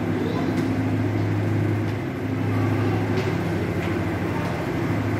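Steady low mechanical hum, like a large engine or machinery running, with a few faint footstep taps on a hard floor.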